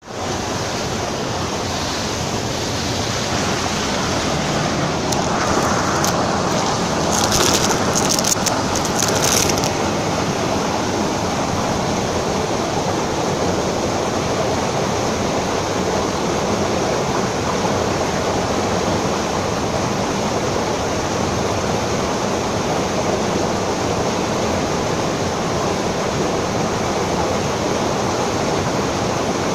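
Steady rush of running water, with a few brief crackles about seven to nine seconds in.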